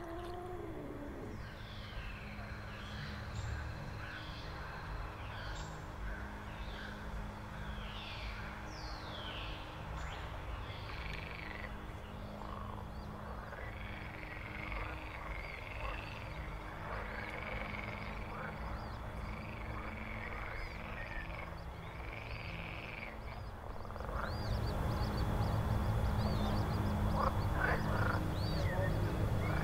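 Horror-film swamp ambience: many short, swooping animal calls over a low, steady drone, which swells louder about 24 seconds in.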